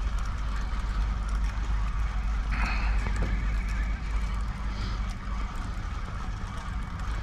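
Wind rumbling on the microphone over water lapping against a small boat's hull, with faint scattered ticks.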